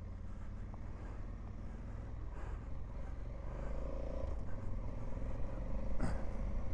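Honda Africa Twin motorcycle engine running as the bike rides along a dirt track, steady and getting gradually louder. A single sharp click sounds about six seconds in.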